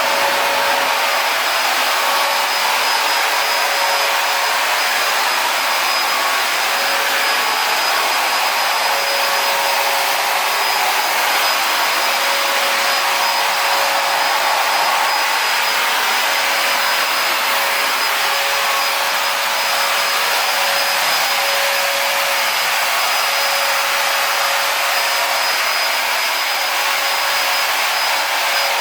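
Motorized disinfectant sprayer running steadily: a constant airy hiss with a steady whine that holds one pitch throughout.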